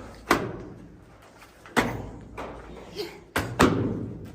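Three loud, sharp knocks about a second and a half apart, each with a short echoing tail, with a couple of fainter taps between the last two.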